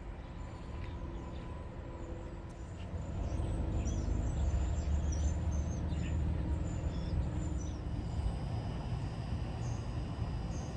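Low rumble of an approaching train, growing louder about three seconds in, with birds chirping over it.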